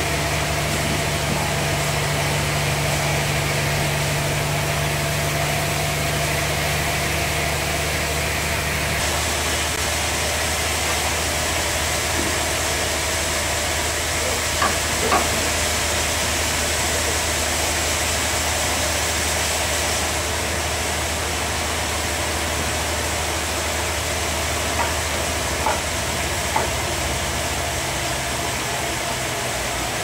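Sawmill band saw machinery running with a steady mechanical hum and hiss. The hum changes about nine seconds in, and a few light knocks sound later on.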